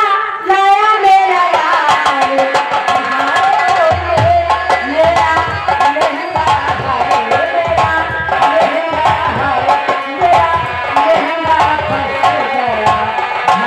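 Live folk stage music played over loudspeakers: a dholak hand drum keeps a fast rhythm under a melody line. Deep bass beats join about four seconds in.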